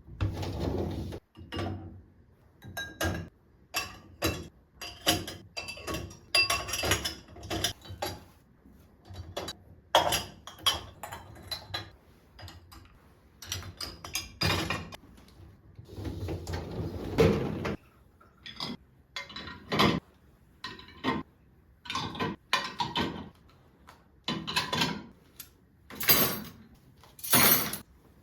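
Irregular clinks and knocks of dishes and household things being handled and set down, several a second with short pauses.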